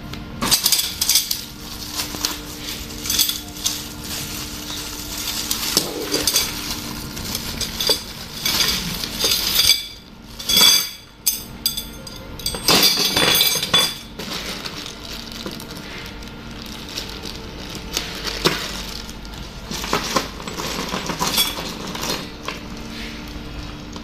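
Stainless steel tubes clinking and knocking against each other as they are handled, with plastic packaging rustling. The clinks come thick in the first half and sparser after.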